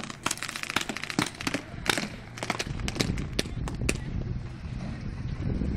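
Paintball markers firing: quick runs of sharp pops, several shots in a row, through the first four seconds or so. A low rumble rises underneath from about halfway in.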